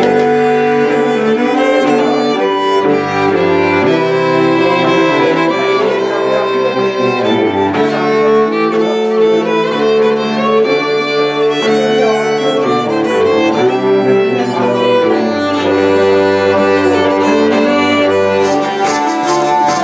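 Three fiddles and a cello playing a Scandinavian folk tune together with long bowed notes. Near the end, a rapid rhythmic pattern of high strokes joins in.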